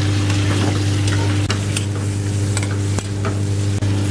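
Mutton curry sizzling in a stainless steel pan as a steel ladle stirs and scrapes through the gravy, with a few sharp clinks of the ladle against the pan. A steady low hum runs underneath.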